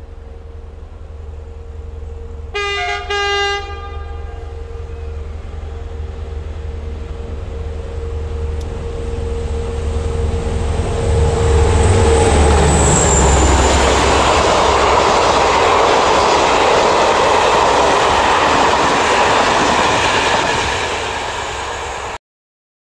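SNCF CC 72000-class diesel locomotive approaching and passing. It sounds two short horn blasts about two and a half seconds in, then its engine rumble grows until it passes close about twelve seconds in. The passing train's wheels on the rails carry on loud and steady, easing off a little before the sound cuts off suddenly near the end.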